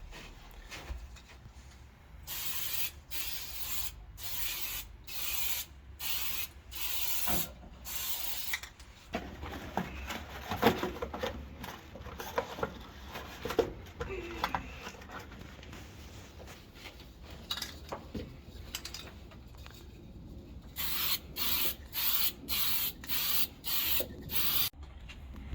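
Aerosol spray paint can spraying in short hissing bursts, about eight in a row, as even coats are laid down in short passes. A stretch of small clicks and knocks follows, then another run of about eight short bursts near the end.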